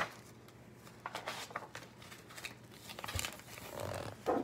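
Hardcover picture book being opened and its pages turned: soft paper rustles and light handling clicks, a brief low knock about three seconds in, and a louder rustle near the end.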